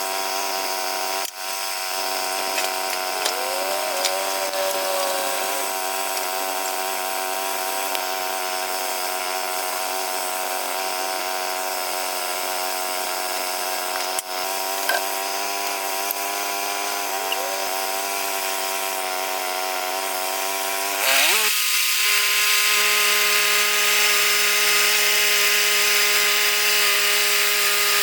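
Portable band sawmill's engine running steadily, then revving up sharply about three quarters of the way through and holding at a higher, louder note.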